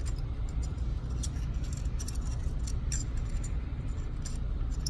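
Small irregular clicks and light rattles of hands working film into the slot of a camera's take-up spool, over a steady low hum.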